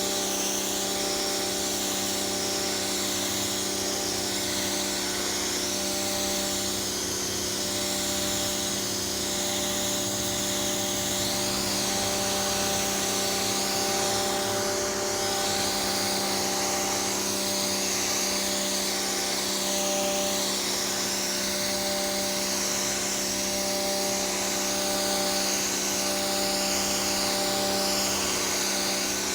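Pressure washer running steadily: its motor and pump hum at a constant pitch under the wavering hiss of the water jet spraying onto the sidewalk.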